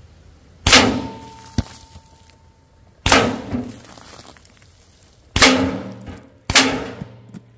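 Four shots from a .357 Western Airguns Rattler pre-charged pneumatic air rifle, each a sharp crack that fades over about a second, the gaps shortening toward the end with the last two close together, as the water bottles on the barrel are hit and knocked over.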